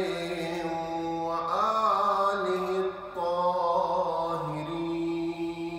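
A man's voice chanting an Arabic supplication in long, drawn-out held notes, the melody stepping to a new pitch every second or two.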